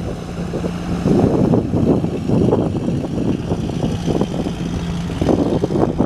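Piper Turbo Arrow IV's turbocharged piston engine and propeller running steadily at one pitch, with gusts of wind buffeting the microphone.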